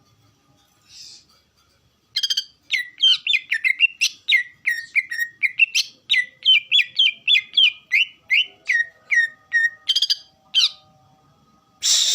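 Green leafbird (cucak ijo) singing a fast series of loud, sliding whistled notes, about three a second, starting about two seconds in and stopping shortly before the end. A short harsh noise follows at the very end.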